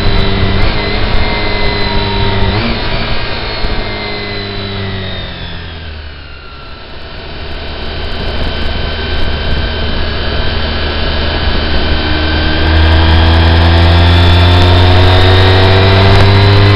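Vehicle engine heard on board over road and wind noise. The engine note falls and quietens over the first six seconds as the vehicle slows, then climbs steadily and grows louder as it accelerates away.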